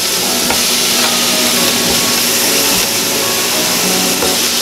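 Venison backstrap steaks sizzling on a hot George Foreman electric contact grill: a steady hiss as the raw meat hits the grill plates. Background music plays along with it.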